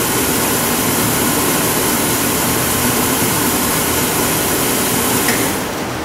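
Converted Olson downdraft waste-oil furnace running with its circulation blower just kicked on: a steady rush of air from the blower over the low hum of the furnace. The high hiss eases off a little near the end.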